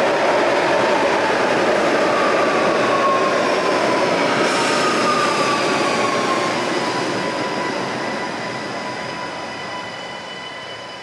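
Guadalajara light rail train running past along the platform of an underground station: a loud rumble of steel wheels on rail with high wheel-squeal tones, one of them sliding slowly down in pitch. It holds loud for about five seconds, then fades away steadily as the train draws off into the tunnel.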